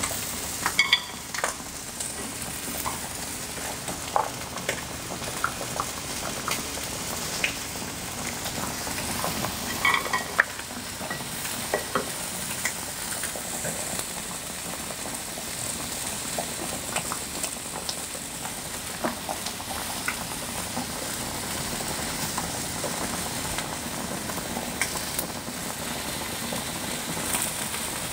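Thin slices of beef sizzling on a tabletop electric grill plate: a steady crackling hiss. A few sharp clicks of chopsticks come through it, the loudest in the first second and at about ten seconds.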